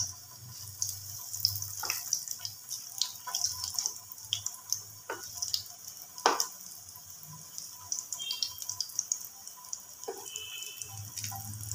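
Potato pakoras frying in hot oil in a pan: a steady sizzle with scattered crackles and sharp clicks as they are turned with a metal spatula, the loudest click about six seconds in.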